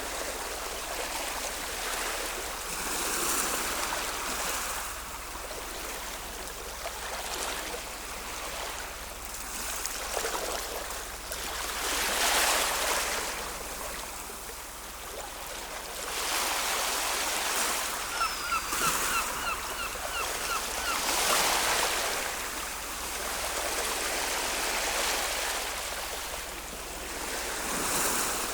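Ocean surf, with waves washing in and breaking, the sound swelling and fading every few seconds. About two-thirds of the way through, a quick run of high chirps sounds over the surf.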